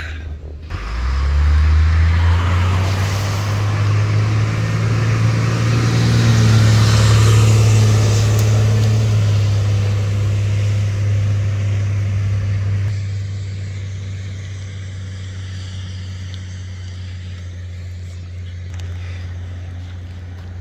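A tow truck drives past on a wet road: its engine runs with a low rumble and its tyres hiss on the wet asphalt. It comes up loud about a second in and dies away after about 13 seconds as it moves off down the road.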